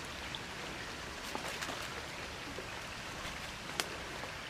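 Food sizzling and steaming in a wok over a wood fire: a steady hiss with a few sharp crackles and pops, the loudest near the end.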